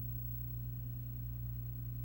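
A steady low hum that holds the same pitch and level throughout.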